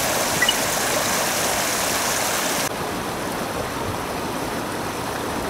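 River water rushing over a low weir, a steady hiss of white water. About two and a half seconds in it cuts to a softer, duller sound of flowing water.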